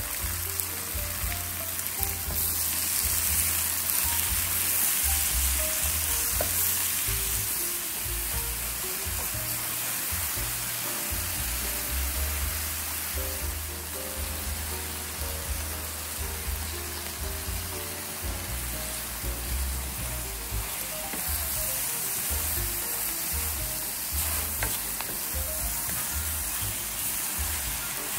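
Sliced onions sizzling as they fry in a frying pan, stirred now and then with a wooden spatula, with light background music.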